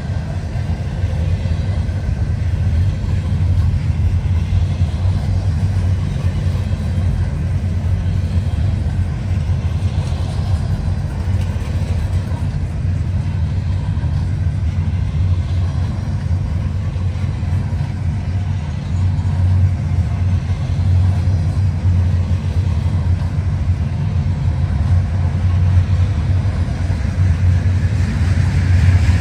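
A CN freight train rolling by, making a steady, loud low rumble.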